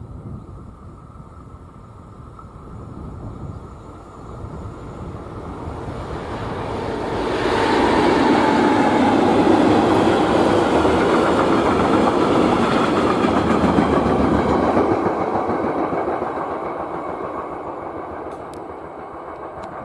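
Freight train passing on the track: its noise builds over several seconds, stays loud for about seven seconds, then fades away.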